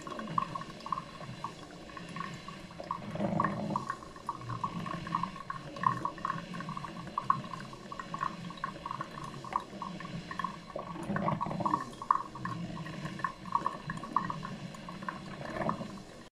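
Electric drip coffee maker brewing: hot water gurgling and sputtering in irregular pops as it is pushed through the machine and drips into the glass carafe, with louder bouts of gurgling about three and eleven seconds in.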